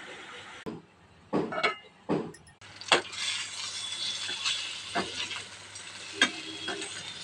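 Koftas frying in hot oil: a few knocks of a utensil against the pan, then a steady sizzle from about two and a half seconds in, with sharp clinks of the utensil on the pan every second or so.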